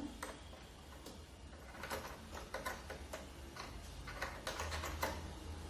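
Irregular small clicks and taps of metal and plastic sewing-machine parts being handled and fitted back into the bobbin and hook area, a few at a time, most clustered around two seconds in and again near the end.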